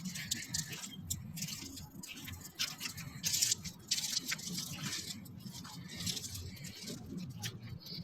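Rain falling in a light shower, drops pattering as many irregular ticks that come thicker around the middle, over a steady low hum.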